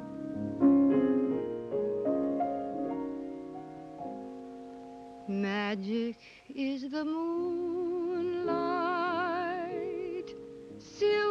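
Piano playing a gentle introduction of held chords. About five seconds in, a woman's voice begins singing over it with a wide vibrato, the opening of a film-musical song.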